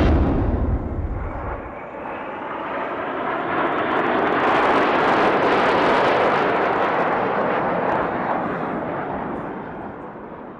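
Jet aircraft flying past overhead: a broad roar that swells to its loudest a few seconds in and then fades away.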